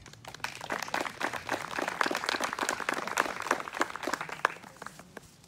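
Audience applauding: a burst of hand-clapping that builds over the first second or two and dies away near the end.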